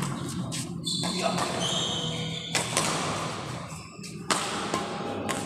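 Badminton rackets striking a shuttlecock during a rally, several sharp hits spread across a few seconds, with high short squeaks of shoes on the court floor.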